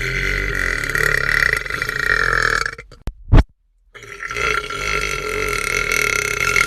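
A man letting out two long, drawn-out burps of about three and a half seconds each. Between them, about three seconds in, comes a short, sharp, very loud pop followed by a moment of silence.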